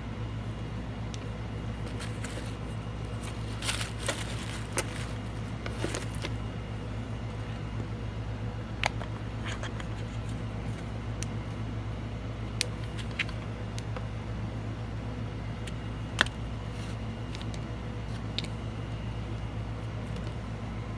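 Air conditioner running with a steady low hum, with scattered light rustles and a few sharp clicks of small objects being handled.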